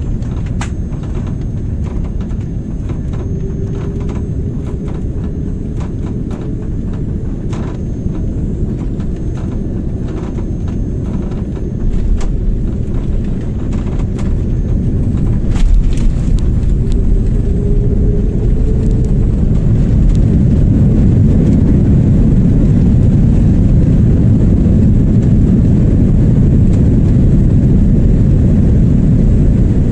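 Jet airliner cabin noise during landing: a steady rumble on final approach, a jump in level about 12 seconds in as the wheels touch down, then a louder, deeper rumble from about 20 seconds in as the jet rolls out along the runway.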